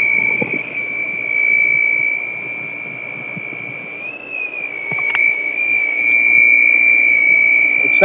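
A steady high-pitched squeal from a Zodiac FloPro pool pump with an A.O. Smith Century motor. It holds one tone with a slight wobble about four seconds in, and fades somewhat in the middle before growing loud again. It is a strange noise of unknown cause, which seems to come from where the pump housing meets the motor, though this isn't certain.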